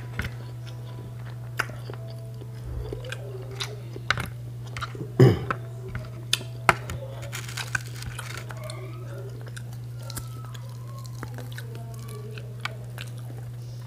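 A person chewing and biting food close to the microphone, with scattered crunches and wet mouth clicks; the loudest smack comes about five seconds in. A steady hum runs underneath.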